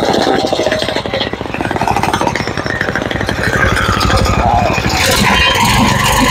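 Petrol-engined concrete vibrator running, its small engine driving the poker through the flexible shaft with a rapid, jackhammer-like buzzing rattle. About five seconds in the sound grows louder and brighter as the engine is sped up.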